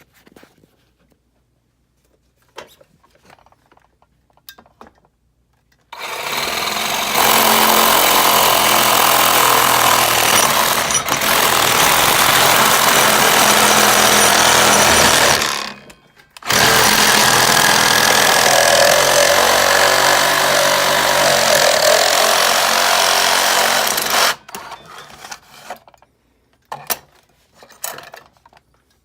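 Power tool cutting into the plastic housing of a GE refrigerator water filter. It runs loud and steady for about nine seconds, stops briefly, then runs again for about eight seconds. Light handling clicks come before and after.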